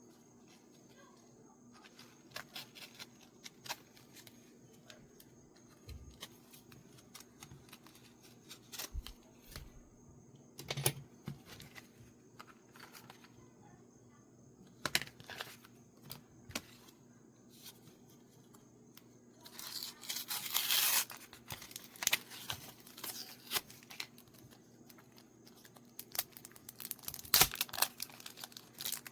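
Paper mail packaging being handled and opened: scattered taps, crinkles and crackles, with a longer, louder stretch of tearing about twenty seconds in.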